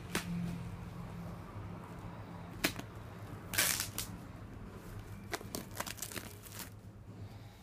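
Packaging on a boxed earbook being torn open by hand: a few sharp snaps and rips, one longer tearing sound about three and a half seconds in, then a quick run of short snaps, over a faint steady low hum.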